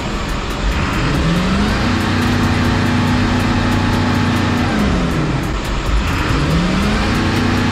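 Diesel bus engine pushed to full throttle and held, then dropped back toward idle, then floored again: the engine pitch climbs about a second in, holds high for about three seconds, falls, and rises again near the end. This is the free-acceleration cycle of a diesel emissions test.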